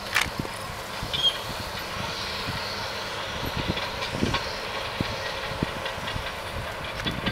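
Bulldozer working in the distance, a steady mechanical rumble, with irregular low thumps over it.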